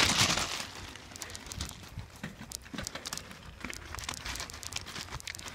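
Phone camera jostling on a bicycle riding a gravel trail: irregular crackling and clicking handling noise, starting with a louder rustle.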